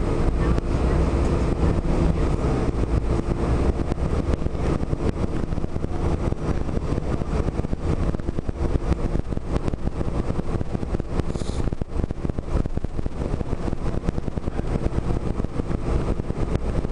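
Cabin noise inside a 2005 Gillig Phantom transit bus on the move: steady rumble of its Cummins ISM diesel engine with road noise, with the air conditioning running. A brief high squeak about eleven seconds in.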